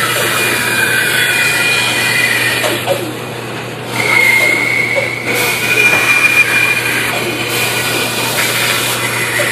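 Band saw running with its blade cutting a curve through a thick block of wood, a high whine from the cut that shifts as the piece is turned over a steady motor hum. The cutting eases briefly about three seconds in, then picks up louder.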